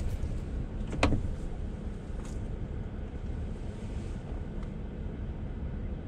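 Steady low rumble of a vehicle driving, with one sharp knock about a second in.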